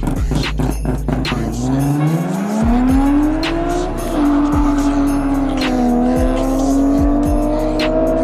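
Car engine accelerating hard from a standstill: the revs climb steeply, drop at a gear change about four seconds in, then pull steadily again. Music with a steady beat plays underneath.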